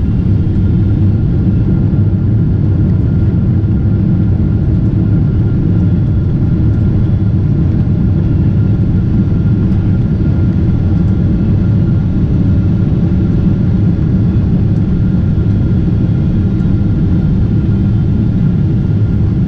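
Boeing 777-300ER cabin noise while taxiing after landing: a steady low rumble of the engines at idle and the wheels rolling on the pavement, with a faint steady whine above it, heard from inside the cabin.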